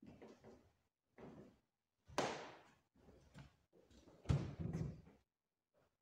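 A scattered series of knocks and thuds, each dying away quickly, the loudest about two seconds in and just after four seconds.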